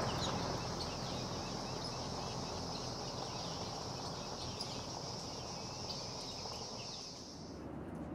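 Bush ambience: a steady high-pitched insect drone with many short bird calls over it. It stops abruptly near the end.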